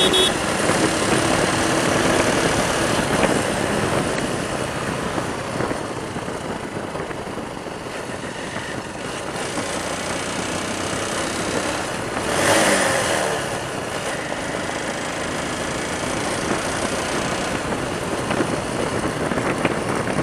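Motorcycle ride: wind and road noise over the bike's engine running steadily at cruising speed. About twelve seconds in, a passing vehicle briefly gets louder and drops in pitch as it goes by.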